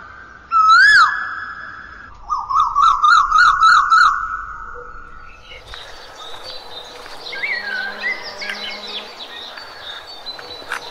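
Birds calling: a loud rising-and-falling whistled call about half a second in, then a quick run of repeated whistled notes around two to four seconds in. From about six seconds on it becomes a fainter chorus of many birds chirping.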